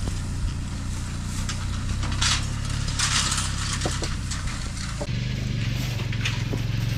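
Small engine of a cargo motor tricycle running steadily, a low even hum, with bursts of rustling about two and three seconds in. The engine note steps up in pitch about five seconds in.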